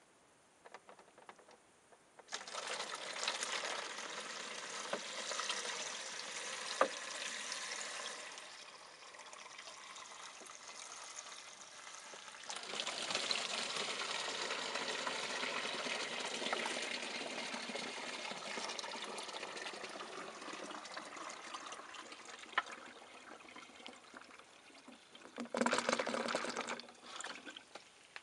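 Water poured from a plastic bottle splashing and trickling into a bell siphon made of cut plastic water bottles, in two long stretches, with a short louder noise near the end.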